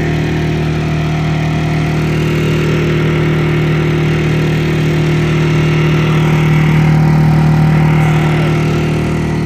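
Harbor Freight portable generator's small engine running at a steady speed, heard loud and plain with the lid of its soundproof box open.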